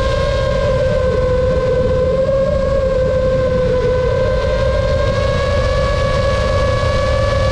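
FPV racing drone's motors and propellers whining at a steady high pitch, wavering slightly and rising a little toward the end, over a low rushing noise.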